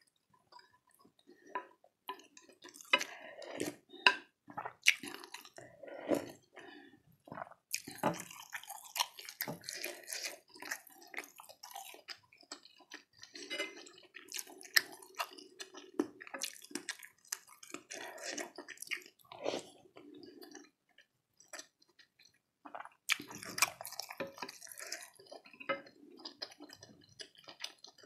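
Close-miked eating: wet chewing of beef fat and meatballs, with a wooden spoon and fork stirring and lifting pieces from a bowl of spicy broth, in irregular clicks, squishes and drips. A steady low drone runs for several seconds in the middle.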